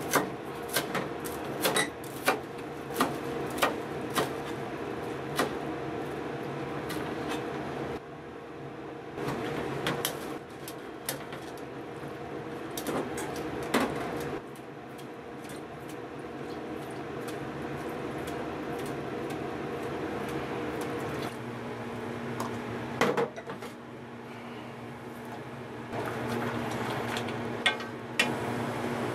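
Kitchen knife chopping mitsuba on a plastic cutting board, a sharp chop a little more often than once a second for the first few seconds, over a steady hum. After that come quieter kitchen handling sounds as cooked rice is rinsed in a metal strainer in a bowl of water, with a sharp knock about two-thirds of the way through and a few light knocks near the end around an aluminium pot on the gas hob.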